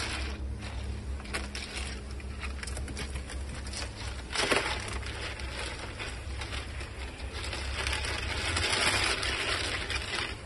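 Ice cubes crunching, clicking and scraping against a plastic tub as a seal pup shifts its body on them, with one louder crunch about halfway through and a denser stretch of scraping near the end. A steady low hum runs underneath.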